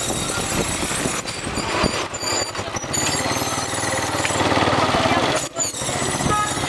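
Small motorbike engine running at low speed, heard from on the bike, with a rapid even pulsing, under busy street noise and voices.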